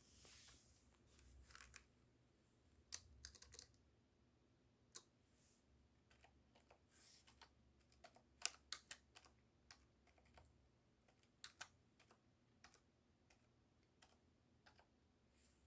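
Faint, irregular clicks of typing on a computer keyboard, with a few sharper keystrokes standing out.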